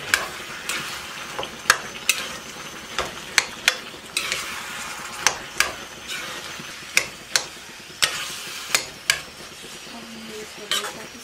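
A metal spatula scrapes and knocks against a metal kadhai about once a second as pumpkin curry is stirred, over a steady sizzle of the vegetables frying once the cooking water has dried off.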